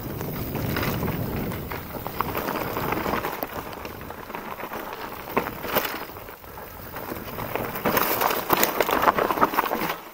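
Mountain bike descending a trail: tyres rolling over leaf litter and dirt, with the bike rattling and clicking over bumps. It gets louder and rougher near the end as the trail turns to loose rock and gravel.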